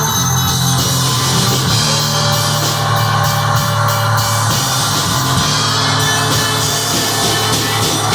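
Live improvised music from a jam: a drum kit with cymbals playing over a held low bass drone, with layered sustained tones above it. The low drone starts at the beginning and drops out near the end.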